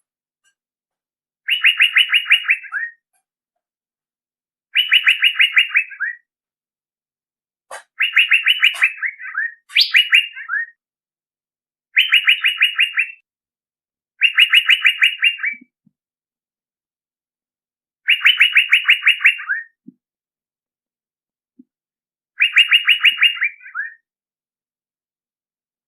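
Male Asian fairy-bluebird's lure call: a quick trill of about ten sharp notes that drops slightly at the end, repeated eight times with pauses of one to four seconds between phrases.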